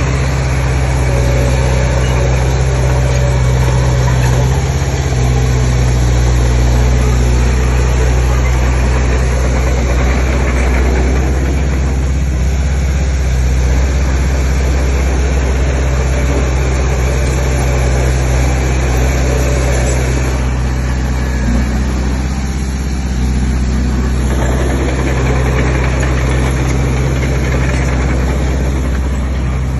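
Heavy earth-moving machine's diesel engine running steadily, with a constant low drone and mechanical clatter that eases off a couple of times.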